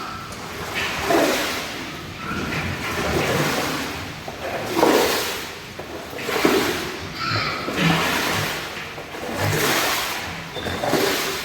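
Pigs squealing and grunting in harsh, noisy bursts, one coming about every second or so.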